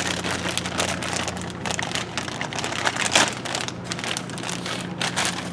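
Crackling, rustling and clicking from handling a new plastic interior door handle for a 1998 Chevy GMT-400 truck, over a steady low hum.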